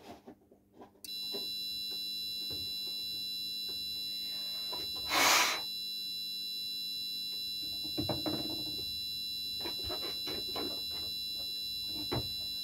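A fire alarm sounder starts about a second in and sounds one steady, high continuous tone with many overtones. A short loud hiss cuts in about five seconds in.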